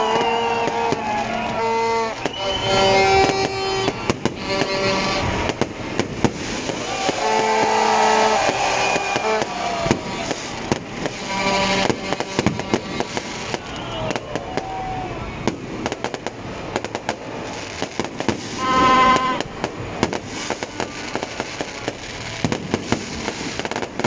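Fireworks going off: repeated bangs and crackling bursts all through, with whistling glides and several held tones mixed in.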